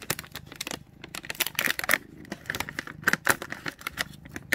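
A plastic cat-treat bag crinkling and rustling as it is handled, with a rapid, irregular run of crackles and clicks.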